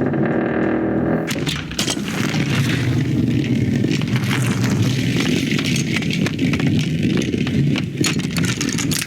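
Car engine running steadily after starting up, as the car drives off, with scattered short knocks and clicks over it.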